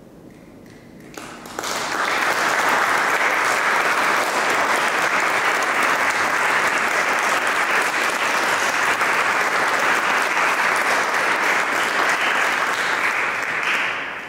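Audience applauding. The clapping breaks out about a second and a half in, holds steady, and fades out near the end.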